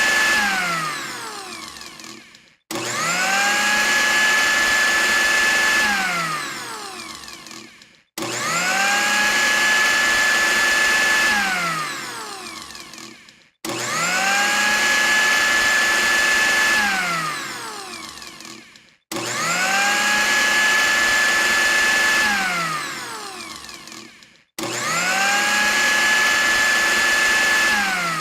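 Electric blender motor switched on and off over and over. Each time it spins up fast to a steady high whine, runs about three seconds, then winds down with falling pitch as it coasts to a stop, restarting about every five and a half seconds.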